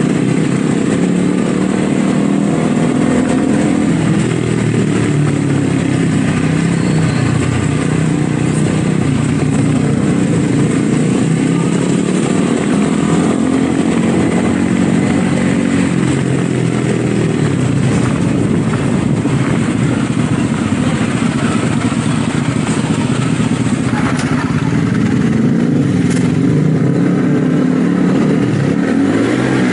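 Motorcycle engine running while riding, its pitch rising and falling with the throttle, over a steady rush of wind and road noise. Near the end the revs rise and drop once.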